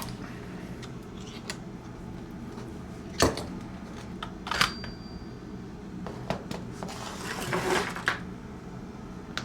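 Metal tools and small parts clinking and knocking on a workbench while the screws of a chainsaw's exhaust muffler are taken out: a sharp knock about a third of the way in, a short metallic clink with a brief ring soon after, then scraping and rustling near the end, over a steady low hum.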